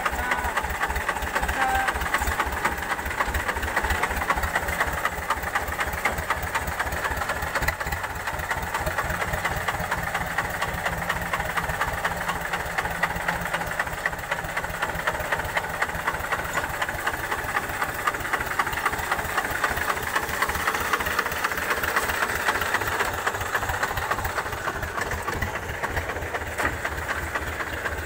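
Vladimirets T-25 tractor's two-cylinder air-cooled diesel engine running steadily, with an even, regular beat.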